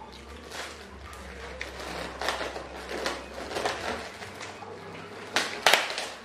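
A plastic bag of kerupuk crackers crinkling and rustling as it is torn open, in a string of short crackles with a louder burst about five and a half seconds in.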